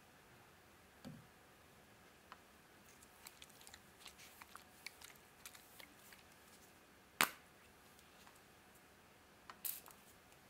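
Faint, scattered crackles and small clicks, then one sharp click about seven seconds in. Near the end a white pump spray bottle spritzes twice in quick succession.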